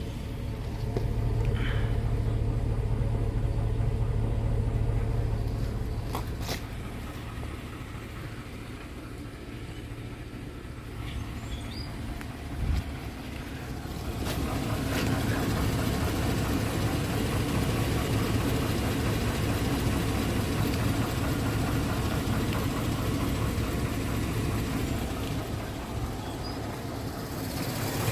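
A motor vehicle's engine running steadily, with a single knock about halfway through. The engine gets louder from about halfway on.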